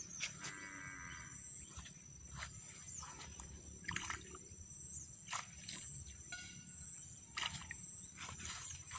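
Steady high-pitched insect drone at the water's edge, with scattered sharp clicks and light splashes, and a couple of short pitched calls.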